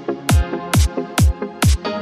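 Electronic background music with a steady kick-drum beat, a little over two beats a second, and synth notes between the beats.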